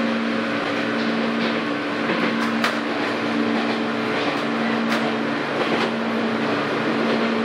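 Former Keio 3000-series electric train running at steady speed, heard from inside the car: a steady humming tone from the drive over rumbling wheel and rail noise, with a few sharp clicks.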